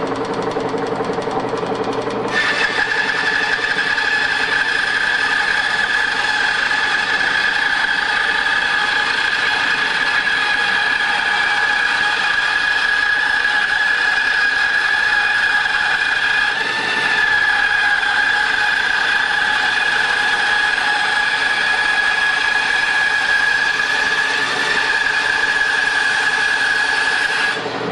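Band saw running, then about two seconds in the blade bites into a board and cuts a long arc through it on a pivot jig, with a steady high-pitched whine over the motor. Just before the end the blade comes out of the wood and the saw runs free again.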